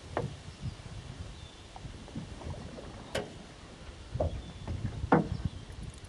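A few short knocks over an uneven low rumble, the loudest knock about five seconds in.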